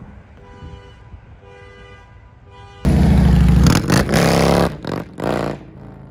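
Harley-Davidson Road Glide V-twin running through a 2-into-1 Shorty exhaust: a moderate, steady engine sound at first, then about three seconds in a sudden, very loud blast of revving. The blast breaks off twice briefly before it fades.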